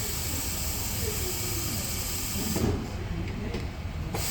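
Steady hiss from a CNC milling machine. It stops about two and a half seconds in and comes back abruptly about a second and a half later.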